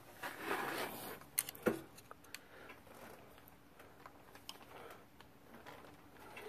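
Faint metallic clicks and light ticks of a hooked steel pick prying at a front crankshaft seal in its aluminium housing, with two sharper clicks about a second and a half in. A soft rustle comes before them.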